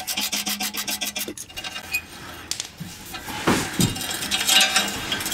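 Ratchet wrench clicking rapidly as it turns out the 1/2-inch bolt of a Harley-Davidson Touring exhaust crossover-pipe hanger, then metal parts clinking and rattling over the last two seconds.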